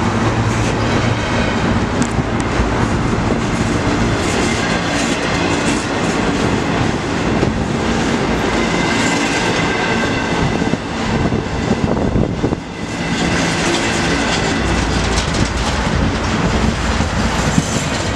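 CN freight train of container well cars rolling slowly past, its wheels clacking over the rail joints, with a faint high squeal now and then as it brakes to a stop for a red signal.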